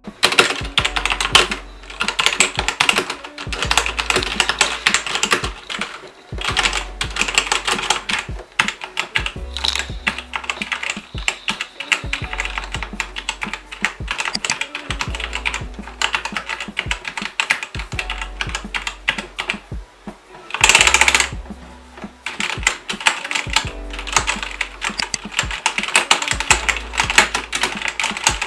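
Typing on a Cougar Puri TKL mechanical keyboard with linear Cherry MX Red switches: a fast, uneven stream of key clacks, with a brief louder burst of noise about two-thirds of the way through.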